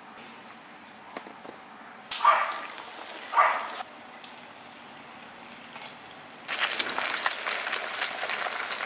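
Semolina-coated sole fish slid into hot oil in an iron kadai, setting off two loud bursts of sizzling about two and three seconds in. From about six and a half seconds on, the oil sizzles and crackles steadily as the fish deep-fries.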